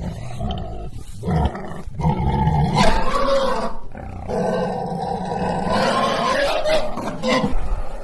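An animal's loud, drawn-out squealing calls, several in a row, the longest lasting about two seconds each.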